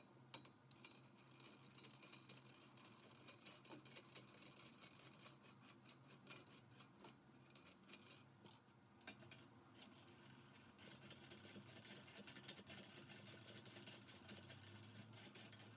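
Faint, irregular clicking and rattling of small metal parts and hand tools being handled during assembly, over a low steady hum.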